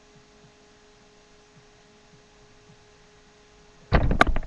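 A faint, steady electrical hum, then near the end a sudden run of loud knocks and rustling as the webcam is picked up and moved.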